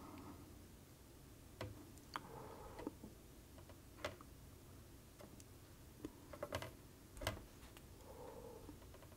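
Faint, scattered small clicks and ticks, about ten at uneven intervals, as a soldering iron tip works along the pins of a surface-mount chip on a circuit board.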